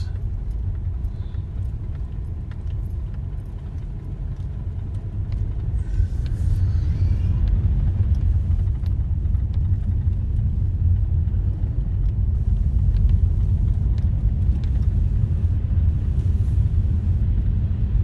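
Low rumble of a car driving slowly over a snow-covered road, heard from inside the cabin: engine and tyre noise, growing louder about six seconds in.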